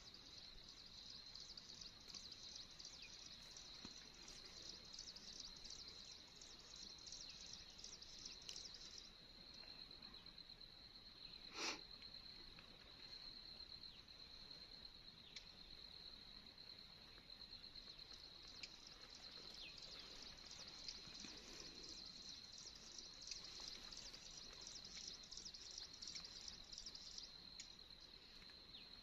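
Faint insect chorus in grassland: a continuous high, thin buzz with a rapid pulsing trill over it that drops out for several seconds in the middle and then returns. A single short click about twelve seconds in.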